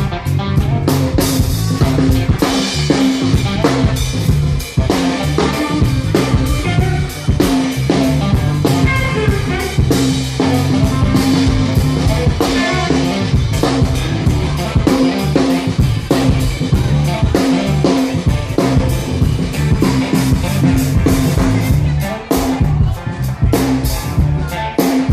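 Live blues-rock band playing loudly: drum kit with snare and bass drum keeping a steady beat, with electric guitar and bass.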